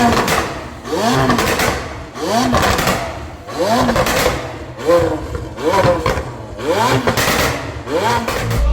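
McLaren 720S 4.0-litre twin-turbo V8 with cat-less downpipes and a stage 2 remap, blipped about eight times in a row. The revs rise and drop straight back roughly once a second, with crackling from the exhaust as each rev falls away.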